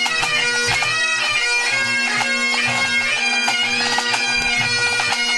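Pipe band's Great Highland bagpipes playing during their tune-up: steady drones sounding under a changing chanter melody.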